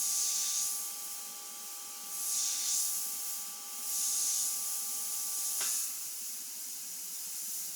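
Badger Renegade Spirit detail airbrush spraying paint in several short hissing bursts of air, a second or so each and a couple of seconds apart, as the trigger is worked for soft shading. A faint steady tone underneath cuts off about two-thirds of the way through.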